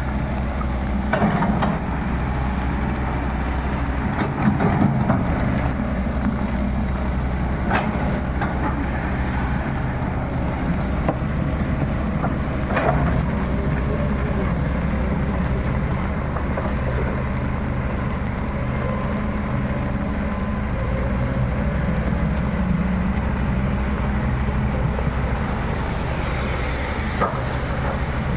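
Excavator diesel engine running steadily under load, with a few sharp cracks and knocks as the machine works, the loudest about four and a half and thirteen seconds in.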